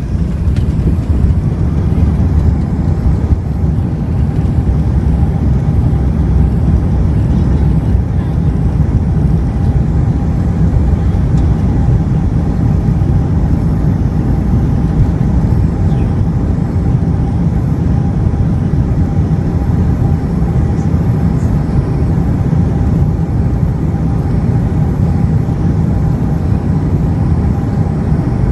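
Steady low rumble of an Airbus A380 heard from inside the passenger cabin, with a faint steady hum above it.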